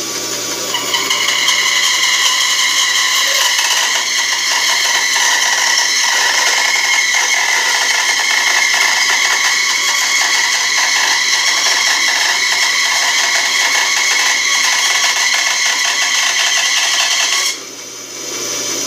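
Older Delta bandsaw, blade cutting through a board on edge in a long resaw cut, loud and steady over its motor hum. Near the end the cut comes through and the sound drops to the saw running free.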